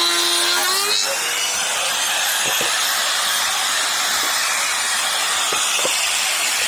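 Electric power tool working wood: a motor whine that rises in pitch in the first second, then gives way to a steady rasping noise of the tool cutting into the wood.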